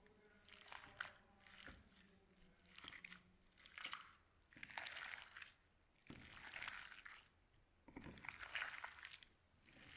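Slime being pressed and squeezed by hand, making faint, repeated sticky crackling sounds that come about once a second.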